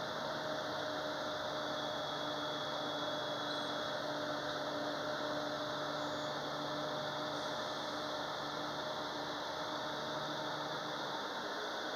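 Steady road and engine noise heard from inside a moving vehicle's cabin, with a faint steady hum.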